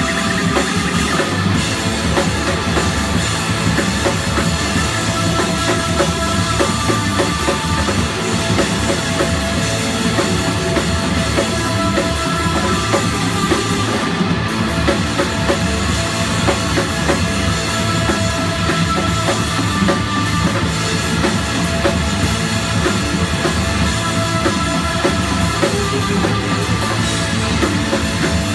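A live rock band playing steadily, with a drum kit, electric guitar, electric bass and keyboard.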